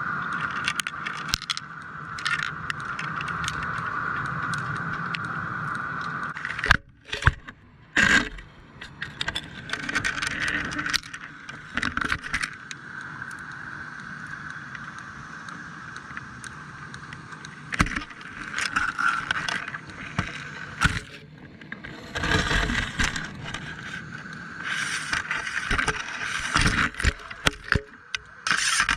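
Fishing boat's engine running steadily, with irregular knocks and scrapes over it. The loudest knocks come about seven and eight seconds in.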